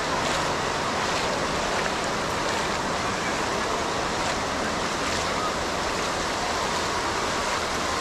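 Ocean waves breaking and washing ashore: a steady rushing noise with no lull.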